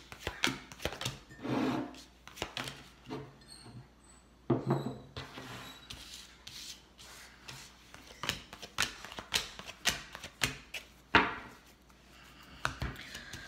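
A deck of tarot cards being shuffled and handled: a busy run of irregular clicks and rubs, with a sharper snap about eleven seconds in.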